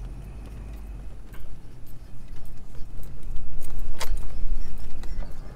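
Pickup truck rolling slowly across a pasture, heard from inside the cab: a low rumble with rattling and clicking that grows louder about a second and a half in, and a sharp knock about four seconds in.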